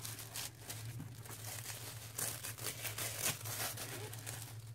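Tissue paper crinkling and rustling in irregular bursts as hands unwrap it from around a box.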